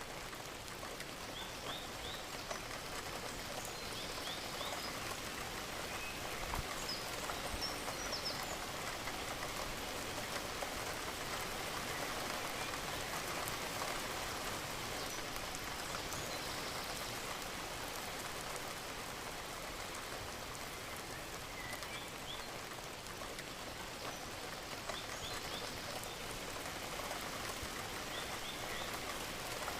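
Steady rain, with many drops ticking on a surface under an even hiss. A few faint, short, high chirps come through now and then.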